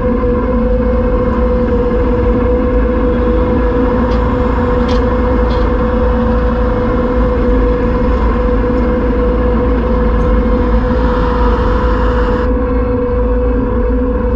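Kubota SVL75 compact track loader's diesel engine running steadily with a constant whine. A few faint knocks come around four to six seconds in, and a layer of hiss cuts off abruptly near the end.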